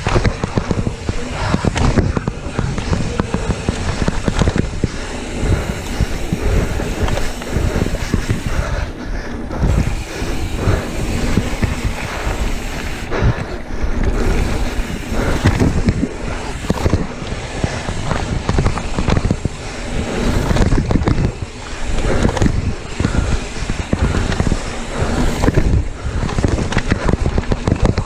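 Mountain bike rolling fast down a dirt singletrack: tyre roar on the dirt with constant rattling and clattering of the bike over bumps and roots, and wind buffeting the camera microphone.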